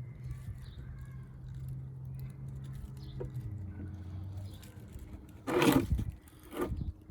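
A steady low hum that drops in pitch about halfway through, with a couple of light knocks and a loud clattering or scraping noise near the end, followed by a shorter one.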